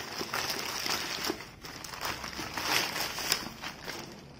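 Plastic courier mailer bag crinkling and rustling in irregular bursts as hands pull it open and draw out the cardboard-wrapped parcel inside.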